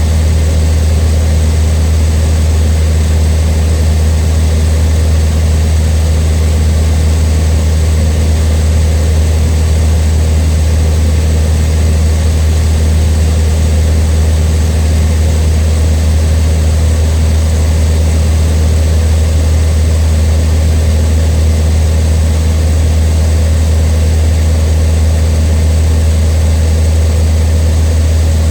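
Cessna 152's four-cylinder Lycoming piston engine and propeller running at a steady power setting, a constant low drone with no change in pitch or level.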